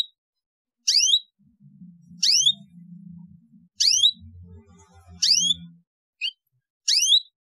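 Canary repeating a short rising chirp call, about one every second and a half, with one shorter chirp near the end.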